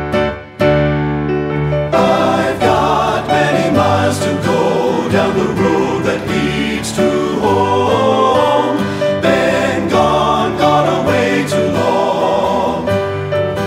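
Men's choir singing in three-part TBB harmony with piano accompaniment, in a folk style. A chord is held for about the first two seconds, then the voices and piano move on into a fuller, busier sung passage.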